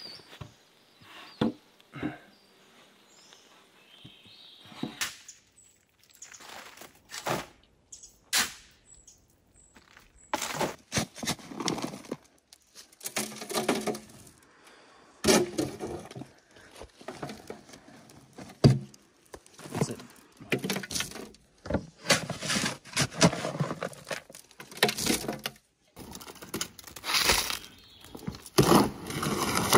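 Irregular knocks and thuds of lumber being set on cut stumps. From about ten seconds in, repeated scrapes and thumps of a shovel follow as soil is dug from a wheelbarrow into a plastic bucket and wet concrete is worked in a wheelbarrow.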